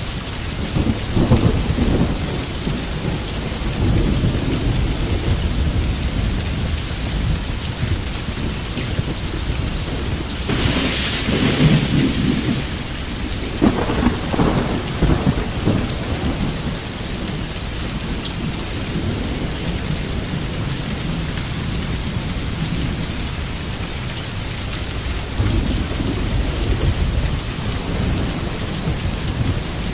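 Steady heavy rain with thunder rumbling several times, loudest about eleven to fifteen seconds in.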